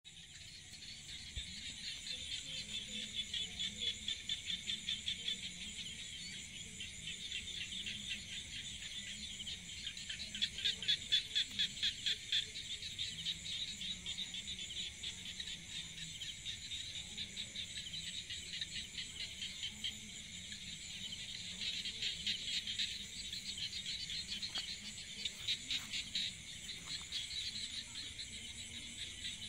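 Steady high-pitched chorus of calling insects, trilling in rapid pulses, growing louder around ten seconds in and again past twenty seconds.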